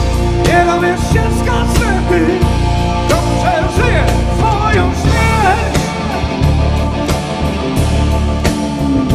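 Rock band playing live: a male singer sings over keyboards, electric guitar, bass guitar and drums.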